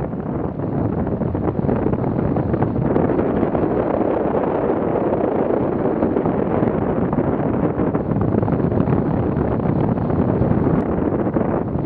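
Wind rushing over the microphone of a hang glider's wing-mounted camera as the glider launches and flies. It builds over the first couple of seconds as airspeed picks up, then holds steady.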